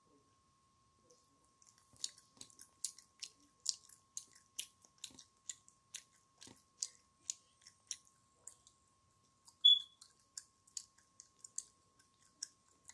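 A child chewing bubblegum with open-mouthed smacks, about two a second, starting about two seconds in. A single short high squeak about ten seconds in is the loudest sound.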